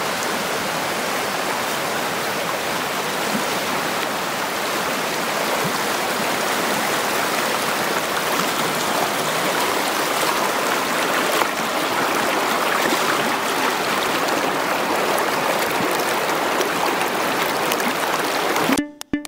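Mountain stream running, a steady, even rush of water. Just before the end it cuts off abruptly and music with sharp percussive beats starts.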